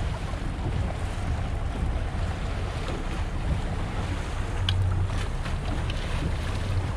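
Wind buffeting the microphone on an open fishing boat, over a steady low drone from the boat's engine and the wash of water. A few faint ticks come about five seconds in.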